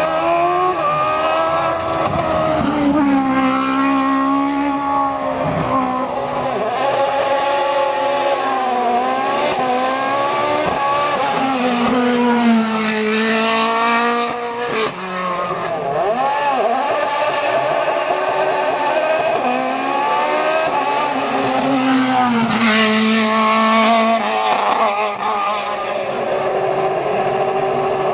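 Race car engines revving hard at high rpm. The pitch climbs and drops again several times as the cars change gear.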